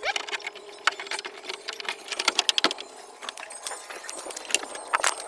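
Irregular sharp metallic clicks and knocks from hand work on a van's rear door lock, with a louder clack about five seconds in.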